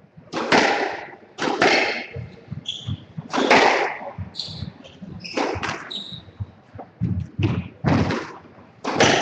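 Squash rally: the ball struck by rackets and hitting the walls, a sharp echoing knock every second or two.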